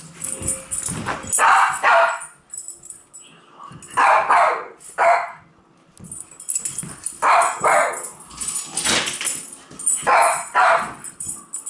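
Dog barking excitedly in short, sharp barks, mostly in quick pairs, about a dozen in all, with light clicks and scuffles between them.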